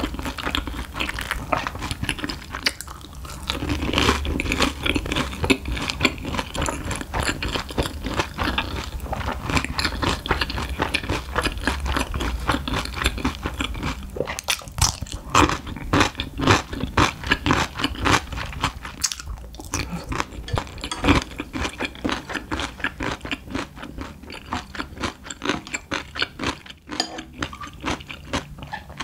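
Close-miked crunching and chewing of a crisp deep-fried Monte Cristo sandwich, with a run of sharper crunches around the middle as a pickle is bitten.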